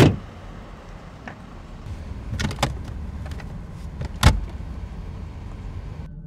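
A car door shutting with a thud, then two clicks and a knock from the glovebox being opened and shut inside the car, over a steady low rumble.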